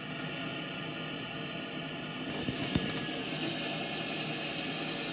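Large farm harvest machinery running steadily: a heavy diesel engine drone with a few faint clicks about halfway through.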